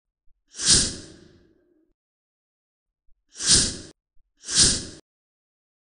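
Three short whoosh sound effects, each a breathy swell that cuts off. The first comes about half a second in and trails off briefly. The other two follow close together around three and a half and four and a half seconds.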